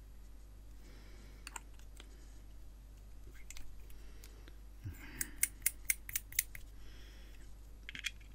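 Small metal parts of a rebuildable dripping atomizer (RDA) clicking and lightly scraping as they are handled and fitted together, with a quick run of about seven sharp clicks around five to six seconds in.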